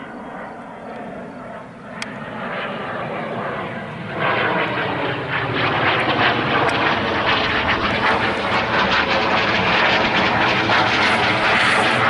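Twin-engine jet airliner flying low overhead. Its engine noise is a wide rushing sound that jumps up about four seconds in and keeps growing louder.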